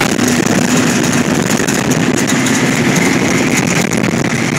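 Sandrail dune buggy driving fast over a dirt desert track: the engine runs steadily under a loud wash of noise, with many sharp rattles and knocks from the buggy bouncing.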